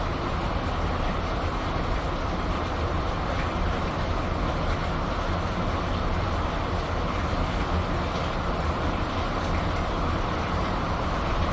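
Steady rain with a constant low rumble beneath it.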